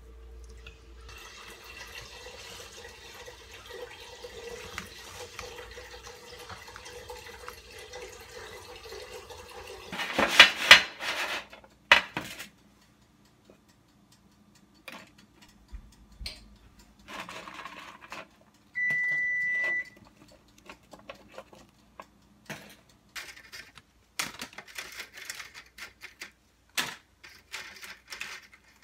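Kitchen handling sounds: a faint steady hum at first, then a loud clatter of cookware about ten seconds in. A single electronic appliance beep lasts about a second, followed by scattered light clicks and rattles of things being handled.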